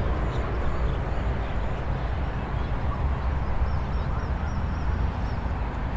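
Rural morning ambience: a steady low rumble under faint bird calls, with a quick run of high chirps about four seconds in.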